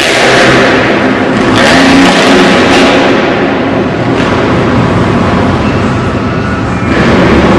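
Motocross bike engine revving hard, surging and easing with the throttle, loudest in the first two seconds and again near the end, inside a large hall.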